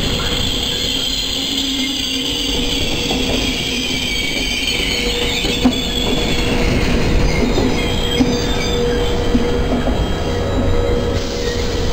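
Regional passenger train coaches rolling slowly along the platform as the train brakes to a stop, with a steady squeal from the brakes and wheels over the rumble of the running gear.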